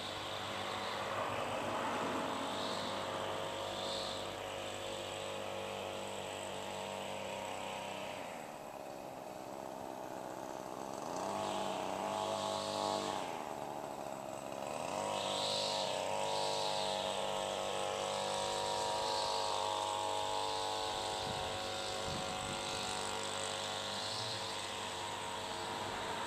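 A small engine running steadily, with a level drone that dips briefly twice around the middle.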